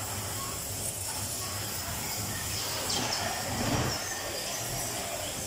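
Electric bumper cars running around the arena: a steady low hum and rumble with hiss that swells briefly a little past the middle.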